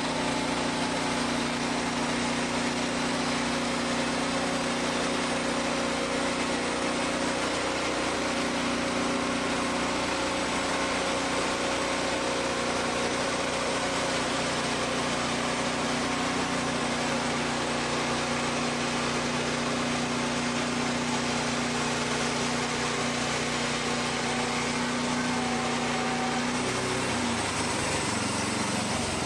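Wood-Mizer portable band sawmill's engine running steadily, presumably driving the band blade through the cherry log, then dropping in pitch near the end as it throttles back.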